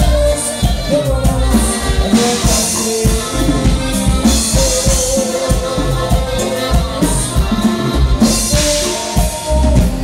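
Regional Mexican dance music from a band, with drums keeping a steady beat under sustained melody lines.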